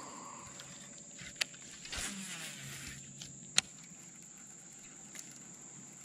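Faint, mostly quiet stretch with a steady high whine, broken by two sharp clicks about two seconds apart and a brief rustle between them, from handling a baitcasting rod and reel.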